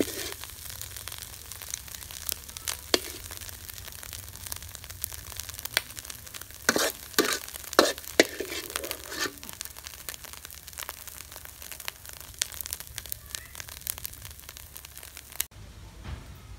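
Pumpkin and egg stir-fry sizzling in a wok while a metal spatula scrapes and taps against the pan. A cluster of louder clanks comes about seven to eight seconds in, and the sizzle cuts off suddenly about a second before the end.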